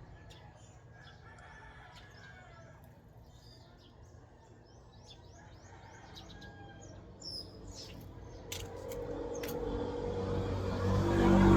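Birds chirping in short, high calls. Then a motor vehicle approaches and passes, growing steadily louder from about three-quarters of the way in and loudest at the very end.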